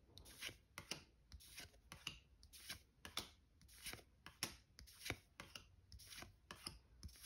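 Yu-Gi-Oh! trading cards sliding against each other as a stack is flipped through one card at a time: faint, short swishes repeating about two to three times a second.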